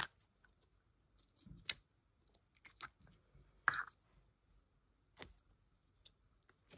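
Slime and clay being worked by hand: scattered sticky clicks and small pops, a few sharper ones spaced a second or two apart.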